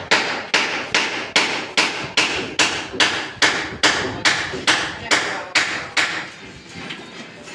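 Steady hammer blows, about two and a half a second, that stop about six seconds in.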